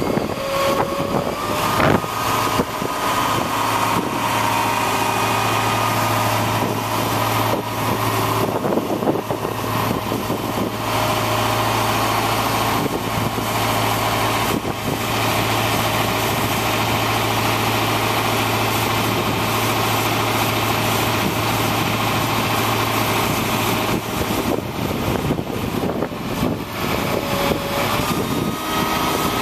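1999 International digger derrick truck's engine running steadily while its hydraulics raise the boom. A steady low drone sets in about two seconds in and drops out near the end, and a tone in the upper range shifts in pitch at the start and near the end.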